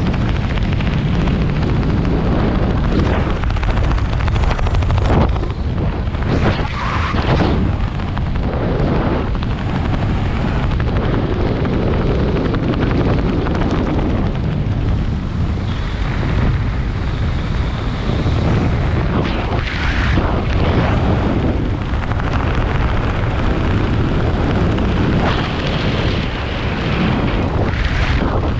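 Wind buffeting a point-of-view camera's microphone during a parachute descent under canopy: a loud, steady low rumble that swells and eases in irregular gusts.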